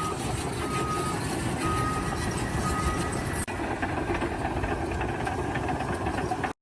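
A vehicle's reversing alarm beeps about once a second over steady engine and machinery noise, stopping about three seconds in. The steady rumble carries on after it.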